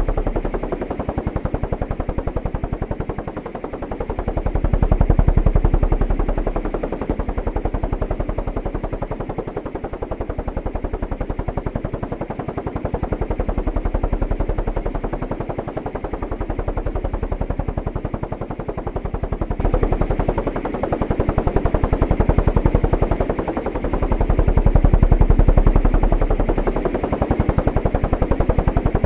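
Helicopter rotor chop: a fast, steady thudding of the blades with a high whine above it, swelling and fading every few seconds.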